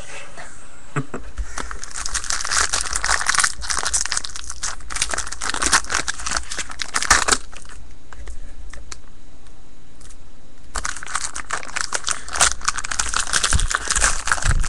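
Crinkling and tearing of trading-card pack wrapping and packaging as it is handled and opened. It eases off for a few seconds past the middle, then picks up again.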